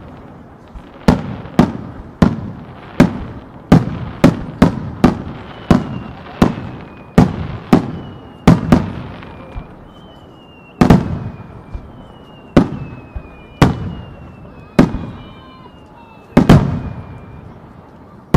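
Starmine fireworks display: aerial shells bursting in quick succession, about twenty sharp bangs each trailing off in echo. Thin high whistles, falling slightly in pitch, sound between the bangs in the second half.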